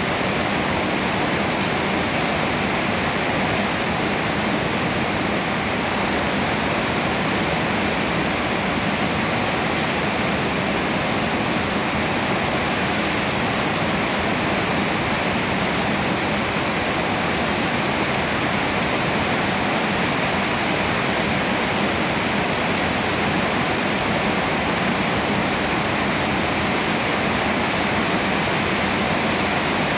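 Steady rain falling on leafy trees: an even, unbroken hiss that holds constant throughout.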